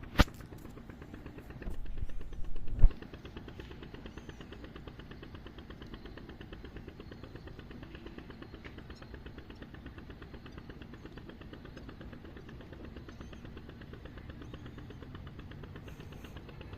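A small engine running steadily with a fast, even pulse. Within the first three seconds there is a sharp knock, then a short louder noise ending in a sharp click.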